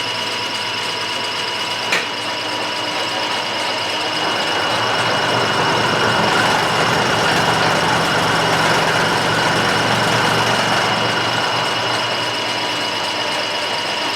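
Metalworking machine running steadily with a constant high whine while it takes a light cut in metal, louder between about five and eleven seconds in. A single sharp click comes about two seconds in, and the sound cuts off abruptly at the end.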